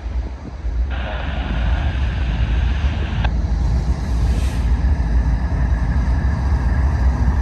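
Approaching freight train's GE ES44C4 diesel locomotives, a low rumble growing louder. About a second in, a burst of scanner radio static cuts in and stops abruptly about two seconds later.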